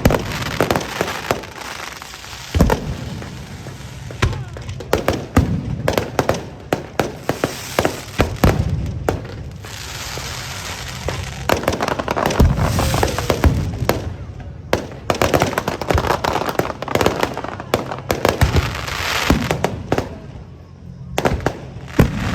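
Aerial fireworks going off in a rapid, irregular string of bangs, with crackling between the bursts.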